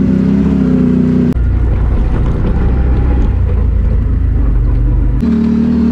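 Can-Am Renegade XMR 1000R ATV's V-twin engine with an SLG Sniper slip-on exhaust, running steadily at trail speed. About a second in, the sound cuts abruptly to a lower, rougher engine rumble, then cuts back to the steady engine note near the end.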